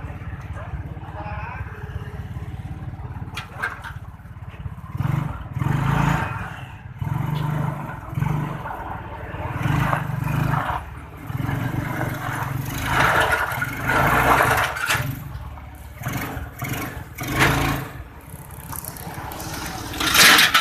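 Honda Karisma 125cc single-cylinder four-stroke engine in a homemade mini jeep running steadily at first, then revved up and let back down repeatedly from about five seconds in.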